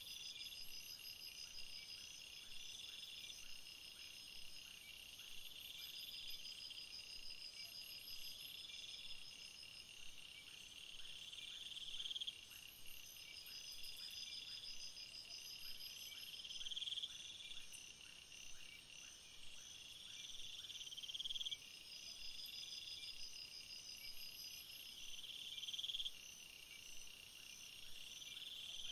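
Faint insects chirping: a pulsed trill that swells and then cuts off, repeating every two to four seconds, with thinner, higher trills running over it.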